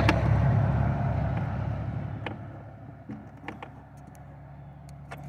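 A motor vehicle's engine rumble fading away over the first two or three seconds. It is followed by a few light, sharp clicks of tools working the battery terminal nuts.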